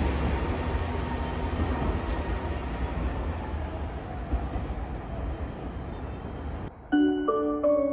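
A train running past, its rumble slowly fading away. About seven seconds in it cuts off suddenly and music with bright, mallet-like notes starts.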